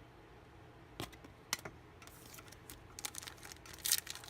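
Trading cards and packs being handled on a table: scattered soft clicks and light rustling, growing busier in the last second.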